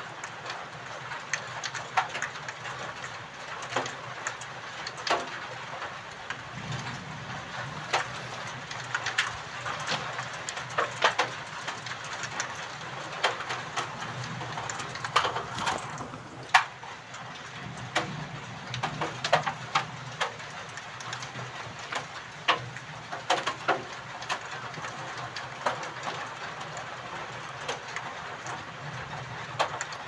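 Steady rain with frequent sharp, irregular drips and drop taps close by. A faint low hum swells and fades underneath now and then.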